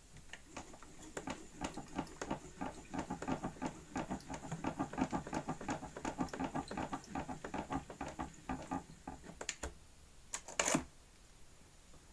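Acoustic gramophone's spring motor being wound by its hand crank: a dense run of rapid ratcheting clicks and rattles, then a single louder clatter near the end.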